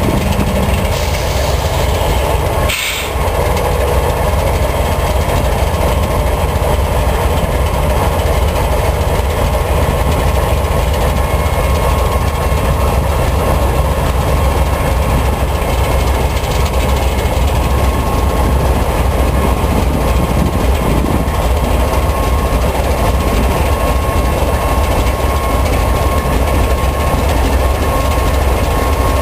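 CSX freight train's diesel locomotives passing slowly: a steady, loud rumble of engines and wheels on rail. A faint, thin high tone joins about halfway through.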